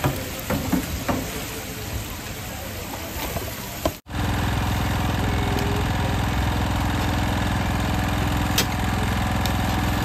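Chicken deep-frying in a vat of hot oil, with a steady sizzle and a few knocks of tongs against the fryer. About four seconds in, the sound changes to a steady low hum of a small engine running.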